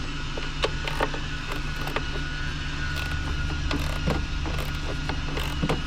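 Small ratchet handle with a 10 mm socket clicking irregularly as the battery hold-down bolts are loosened, over a steady low hum.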